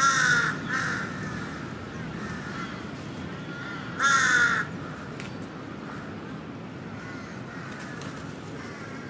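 Crows cawing: a loud burst of harsh caws right at the start and another about four seconds in, with fainter caws in between. A steady low hum runs underneath.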